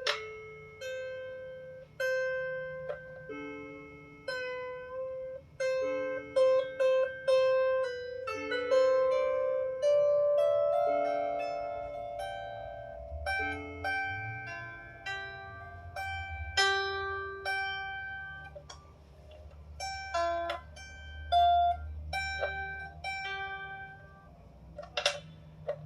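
16-string lyre harp strings plucked one at a time during tuning, one note sliding up in pitch about ten seconds in as its string is tightened. A sharp click near the end.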